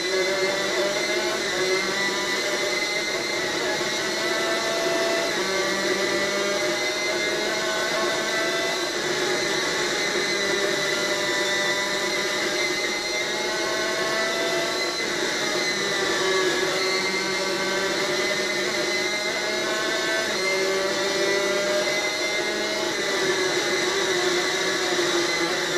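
Superkart's two-stroke racing engine at full throttle, its pitch climbing through each gear and dropping back at every shift, heard played back through a television's speaker.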